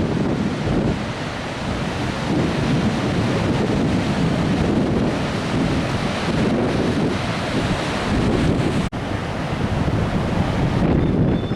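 Wind buffeting the microphone over the sound of surf breaking along the rocky shore, a steady rushing noise heaviest in the low range. It cuts out for an instant about nine seconds in.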